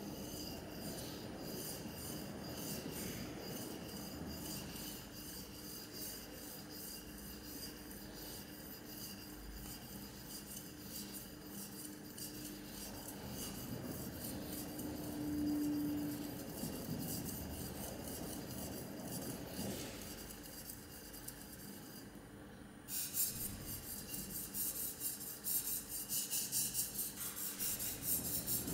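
A steel plane iron is rubbed back and forth by hand on an oiled Norton Crystolon silicon-carbide oil stone, making a rhythmic gritty scraping with each stroke. The strokes become louder and crisper in the last several seconds, at roughly two a second.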